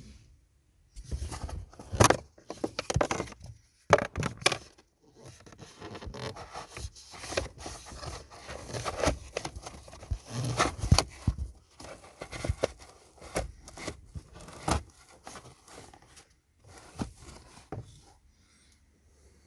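Plastic scraping, rustling and sharp clicks from hands working the air filter and its plastic airbox housing, in irregular bursts with several loud knocks.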